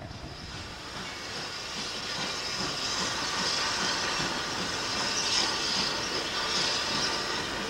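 Steam hissing steadily from rebuilt Merchant Navy 4-6-2 No. 35005 standing at rest, escaping low down beside its driving wheels. The hiss grows louder over the first few seconds, then holds steady.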